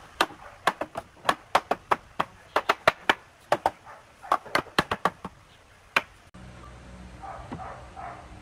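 A wooden mallet knocking on pine bed rails, driving the notched joints down onto the stump legs: a quick, irregular run of sharp knocks, several a second, that stops about six seconds in.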